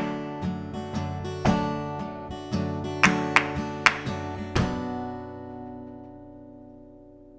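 Acoustic guitar strumming chords, about two strums a second. About four and a half seconds in comes a final chord that is left to ring and slowly dies away.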